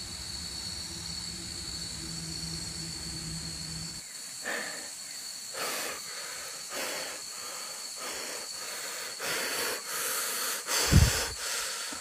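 Heavy breathing close to the microphone, a noisy breath about once a second, over the steady high whine of night insects. A low hum stops suddenly about four seconds in, and a couple of low thumps come near the end.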